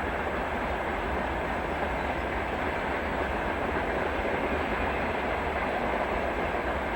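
Train running along the track: a steady rumble of its wheels on the rails.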